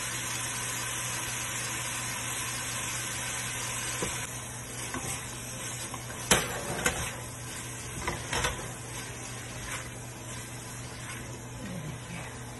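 Bell peppers and carrots sizzling in hot oil in a stainless steel pot, the sizzle quieter after about four seconds. A spatula stirs the vegetables and knocks sharply against the pot a few times from about six seconds in.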